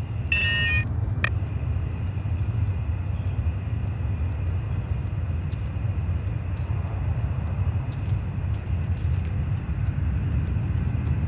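Boeing 747-400 jet engines at takeoff thrust as the airliner accelerates down the runway: a steady, heavy low rumble. A brief high-pitched tone and a click sound about half a second in.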